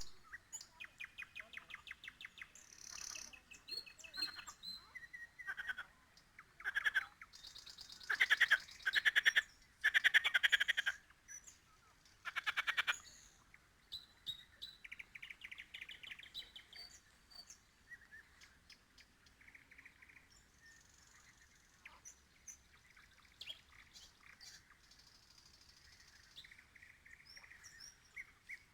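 Nightingale singing: a string of varied phrases of fast repeated notes and trills. The loudest phrases are rattling runs between about 7 and 13 seconds in; the later phrases are softer.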